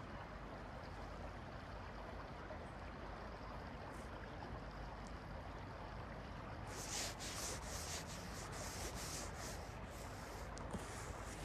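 River water flowing and lapping close by, a steady rushing noise. About two-thirds of the way in, a rubbing hiss in short repeated strokes joins it for a few seconds.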